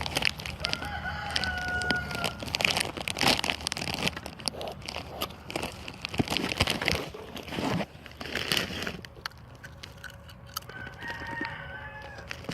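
A rooster crowing twice, once about a second in and again near the end, over steady crackling and rustling.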